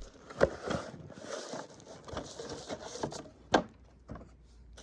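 Cardboard box and its packing being handled and rummaged through, a light rustling with a few sharp knocks, the loudest about three and a half seconds in.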